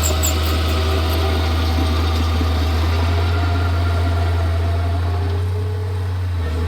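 Diesel engine of a Komatsu D31P bulldozer running steadily with a deep, even hum, easing slightly near the end.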